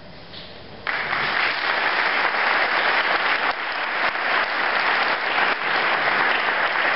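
Audience applauding, starting suddenly about a second in and continuing steadily.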